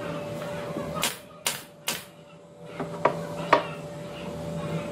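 Pneumatic nail gun firing three times in quick succession about a second in, each shot a sharp snap with a hiss of air, driving nails through a wooden brace into a plywood cabinet. Two sharper knocks follow around three seconds in, the second the loudest, over a steady hum.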